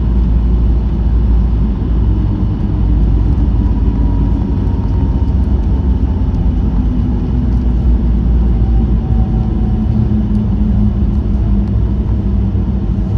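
Cabin noise inside a Boeing 737-900ER rolling on the ground after landing: a steady low rumble, with a faint engine whine from its CFM56-7B engines slowly falling in pitch through the middle.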